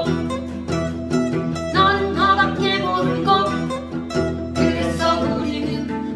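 A guitar playing the melody of a slow song with bends and vibrato over a backing accompaniment.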